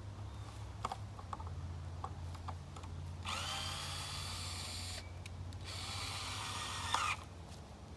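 Cordless drill driving screws, running in two bursts of about two seconds and a second and a half, each speeding up at the start and winding down at the end, with a few light clicks before.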